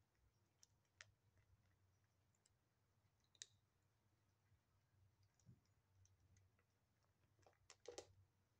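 Very quiet, scattered clicks of a kitten crunching dry kibble and knocking pieces about in a plastic bowl, with the loudest little cluster near the end, over a faint low hum.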